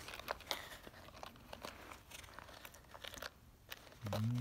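A hand working the zip of a small zippered earbud carrying case: irregular scratchy rustles and small clicks, with a brief lull about three seconds in.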